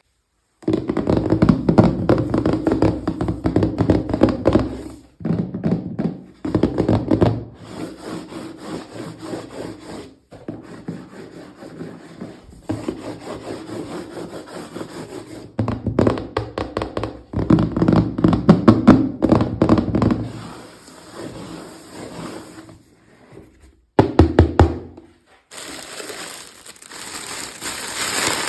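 Close-up unboxing and handling noises: quick clicks, taps and rustles of small packaging, in short segments that cut in and out abruptly.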